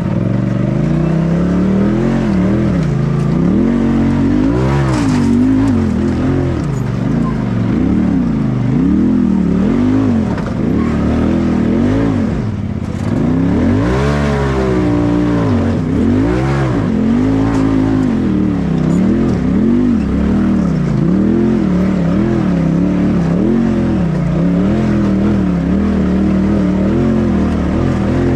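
Polaris RZR side-by-side's engine revving up and falling back again and again, about once a second, as the throttle is worked to crawl up a rutted, rocky trail. The revs dip briefly about twelve seconds in, then climb sharply.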